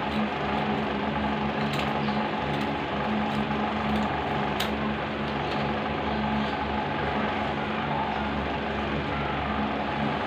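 A steady mechanical hum with a hiss of air noise, like a small motor running, with a few faint clicks.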